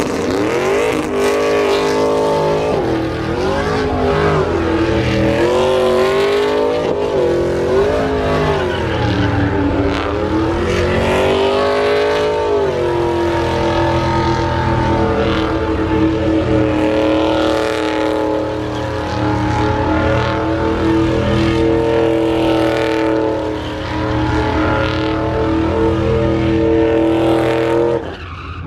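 Pickup truck engine revving up and down in a burnout as it spins its tyres, several rises and falls over the first half, then held at a steady high rev for the rest while the tyres spin in thick smoke.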